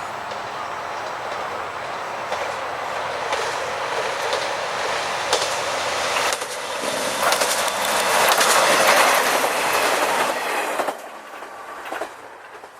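Loud rushing noise with many clicks, building to a peak and then dropping away sharply and fading.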